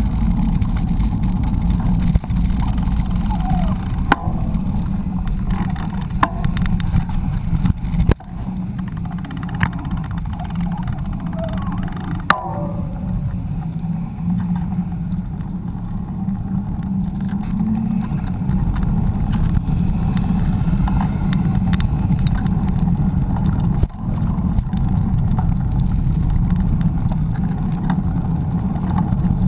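Wind buffeting and rolling rumble on a bike-mounted GoPro as a mountain bike rides over paved streets, with a few sharp knocks from bumps in the road in the first part.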